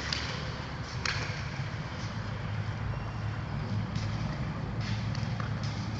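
Steady low rumble with a few sharp, scattered knocks, one about a second in and others near four and five seconds; the knocks fit a frontenis ball being bounced and handled on the concrete court.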